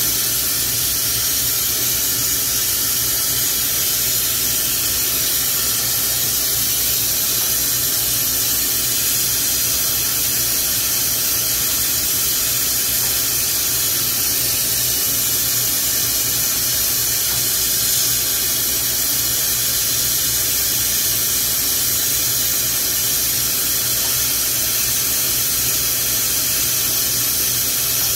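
Glassworking bench torch burning with a steady hiss as glass rods are heated in its flame.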